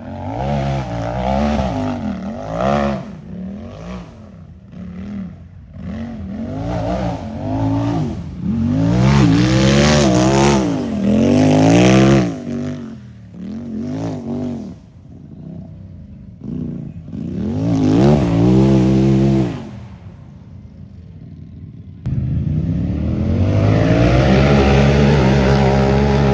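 Unlimited-class race UTV engine revving hard, throttle opened and lifted again and again so the pitch climbs and drops many times. About three-quarters of the way through the engine suddenly comes in loud and stays at high revs.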